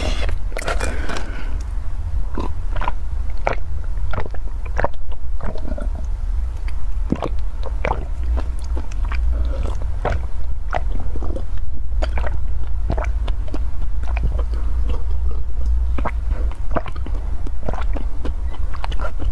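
Close-miked drinking sounds from a plastic cup: irregular wet gulps, swallows and mouth clicks, about one or two a second, over a steady low hum.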